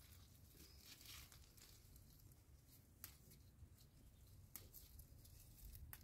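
Faint crackling and tearing of leaves being picked off a plant by hand, a few short separate crackles.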